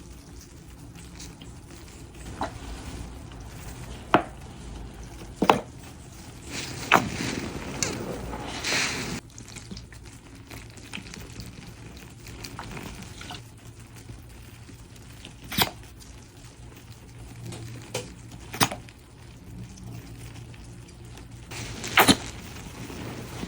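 Soapy, foam-soaked sponge being squeezed by hand: wet squelching swells with scattered sharp pops and crackles from the foam.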